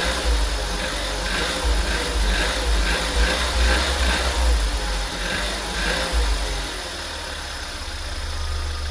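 1.4 TSI CAXA four-cylinder turbo petrol engine of a 2010 VW Golf Mk6 idling, with a short mid-pitched noise repeating about twice a second for a few seconds. The owner is unsure whether this is a weird sound.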